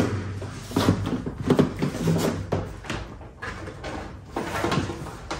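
A soft-top rain rail being fitted over the rear-deck studs of a Mazda Miata: a run of irregular knocks, clicks and scrapes as it is handled and pressed into place.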